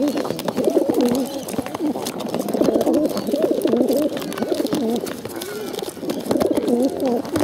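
Several feral pigeons cooing at once in continuous, overlapping wavering calls, close up. Many short sharp clicks run through it, from beaks pecking seed from a plastic bottle.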